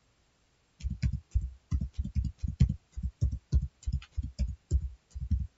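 Computer keyboard typing: a quick run of key taps, about four a second, each a dull thump with a click, starting about a second in.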